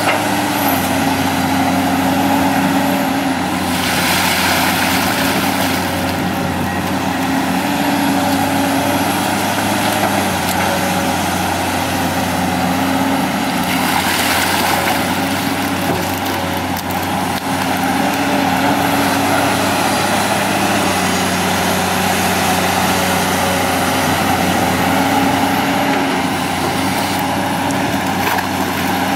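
Komatsu PC200 hydraulic excavator's diesel engine running steadily under working load, its pitch dipping and rising a little as the arm and bucket move through mud, with two brief bursts of hiss about four and fourteen seconds in.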